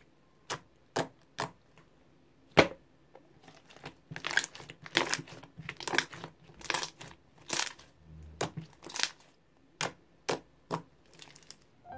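Translucent orange slime squeezed and pressed by hand, giving irregular sticky crackles and pops, one or two a second, the sharpest about two and a half seconds in.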